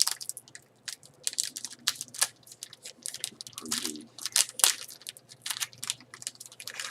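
A sealed trading card pack being torn open by hand, its wrapper crackling and crinkling in quick, irregular bursts.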